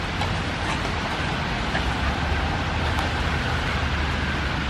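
Steady outdoor street noise: a low rumble like distant traffic under an even hiss, with a few faint ticks and a faint tone sliding slightly lower in the second half.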